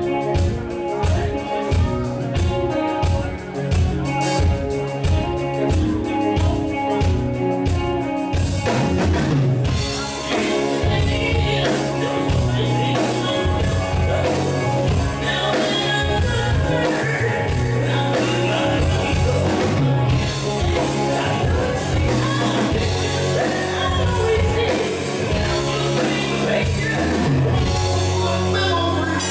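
Live rock band playing, with a male lead vocal over a steady drum beat and guitars; about eight seconds in the band comes in fuller and louder in the high end.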